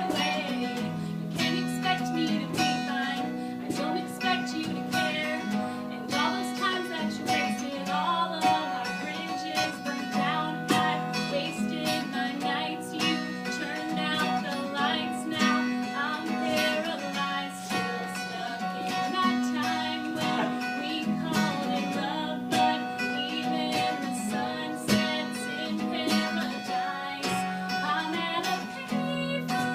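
Acoustic guitar playing, strummed and picked, with held bass notes under a moving melody.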